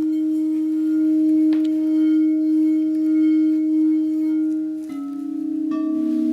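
Singing bowls ringing with a long, wavering hum. About five seconds in, a lower-pitched bowl is struck and joins it, then another lower note, the tones beating against each other.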